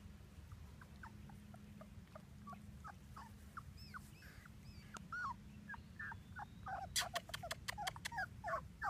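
Three-week-old black Labrador puppy squeaking and whimpering in short, high, rising-and-falling yelps, faint at first and coming faster and louder after about five seconds. A quick run of sharp clicks comes near the end.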